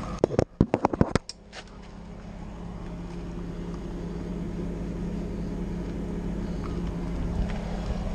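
A quick run of sharp knocks and clatters in the first second, then a steady low machine hum.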